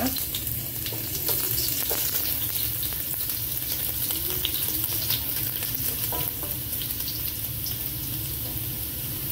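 Sliced shallots sizzling in hot oil with spluttered mustard seeds, stirred with a wooden spatula, with a steady frying hiss and scattered small clicks.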